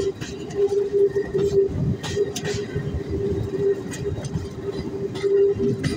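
Passenger train running, heard at an open coach door: a continuous rumble of wheels on rails with a steady hum, and a few sharp clicks about two seconds in.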